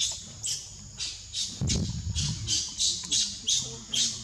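Baby macaque squealing in short, high-pitched cries, about three a second, with a brief low bump a little under two seconds in.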